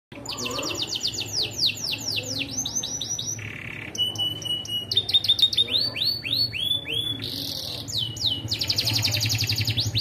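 Canary singing a long, unbroken song (ngeloss): fast trills of repeated falling notes, broken by two short buzzy rasps, and running into a faster, higher trill near the end.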